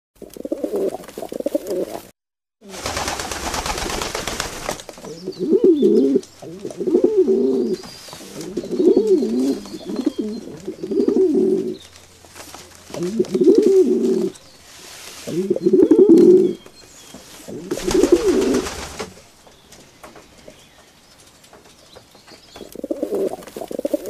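Irani high flyer pigeons cooing: a series of low, rolling coos, one every second or two, with a pause near the end. Twice a couple of seconds of rushing noise cut in.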